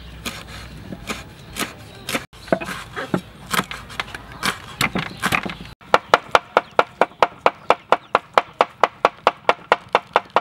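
Meat cleaver chopping on a wooden cutting board: scattered knocks at first, then, about six seconds in, a fast steady run of chops, about five a second.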